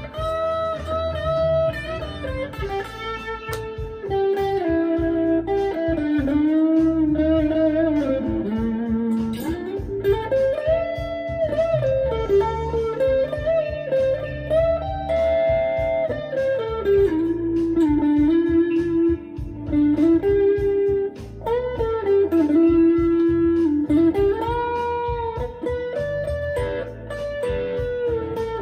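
Electric guitar playing a bluesy lead line over a backing track, with held notes and string bends.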